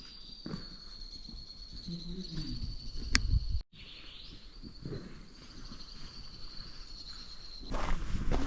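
An insect calling in one high, steady, unbroken note, cut by a brief dropout just past the middle and stopping shortly before the end. Low rustling and a sharp click about three seconds in lie under it.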